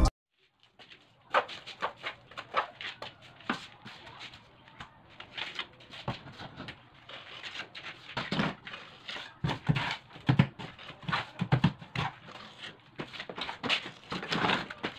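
A hand tool scraping and knocking at the rough cement edge of a concrete sink counter, in irregular short strokes.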